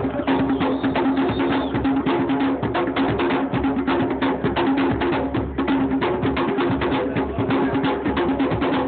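Drum ensemble playing a fast, dense rhythm: three hand drums slapped with bare hands, with a large barrel drum struck with a stick.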